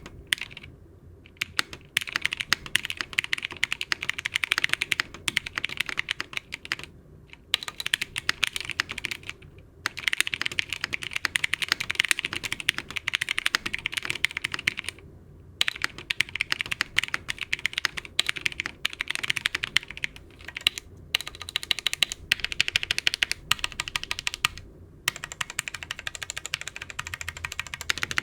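Fast typing on an Abkoncore AR87 mechanical keyboard with lubed Zealios V2 tactile switches, doubleshot PBT Cherry-profile keycaps and modded Cherry stabilizers: dense runs of keystroke clacks, broken by brief pauses every few seconds.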